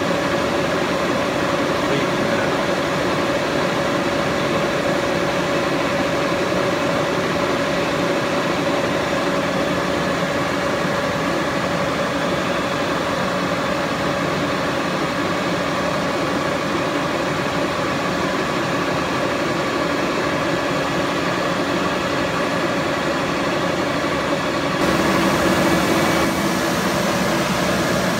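76-inch Bullard vertical turret lathe running: a steady mechanical hum with a steady tone in it. The hum changes in tone and gets a little louder a few seconds before the end.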